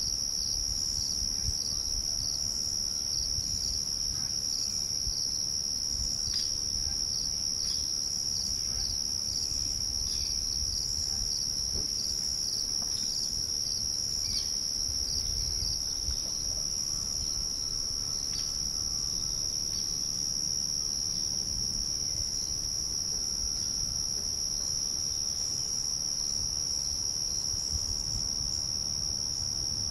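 Crickets trilling in one steady, high, unbroken tone. Just below it, a second insect chirps in short pulses through roughly the first half. A faint low rumble runs underneath.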